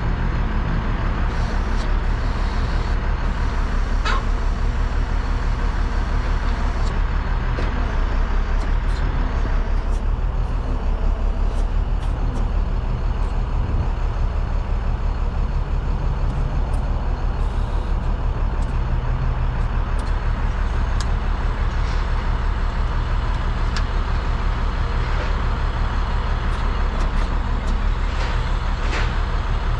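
The truck's International DT466 inline-six diesel runs steadily with an even, fast-pulsing low rumble while it powers the digger derrick's hydraulics as the boom swings.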